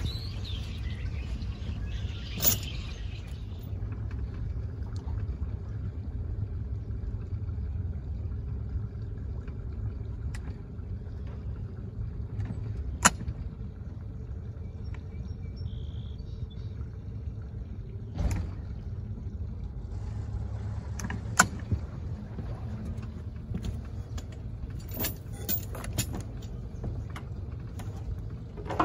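Steady low rumble with a few sharp knocks and clicks scattered through it, from fishing line and gear being handled at a boat among tree branches.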